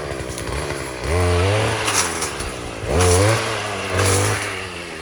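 Small petrol engine of a hand-held cutting tool revving up twice, about a second in and again about three seconds in, each time held high for about a second before dropping back toward idle.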